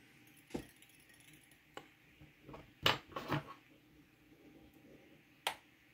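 A handful of faint, separate clicks and taps from hand work at a fly-tying vise: fingers and bobbin holder handling the thread and tail fibres on the hook, the sharpest tap about three seconds in.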